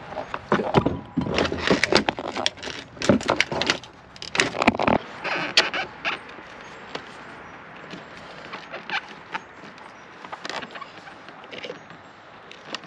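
Hands handling small parts and tools at a boat console: irregular clicks, knocks and rattles, dense over the first five seconds or so, then fewer and fainter.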